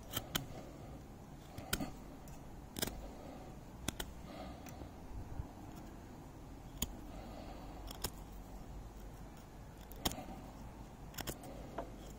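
Fixed-blade knife carving a fresh green wooden stick: about ten irregular sharp clicks as cuts bite and finish, with soft scraping strokes between them.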